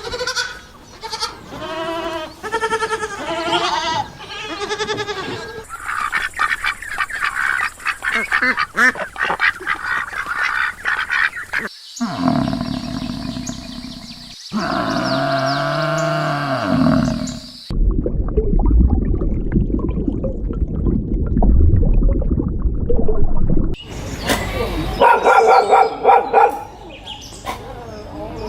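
A run of different animal calls cut together in short segments, each ending abruptly: repeated pitched calls at the start, a low rumbling stretch later on, and more calls near the end.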